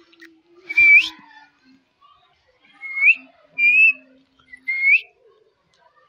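Indian ringneck parakeet whistling: four short notes that each rise at the end. The first comes about a second in, and three more follow between three and five seconds in.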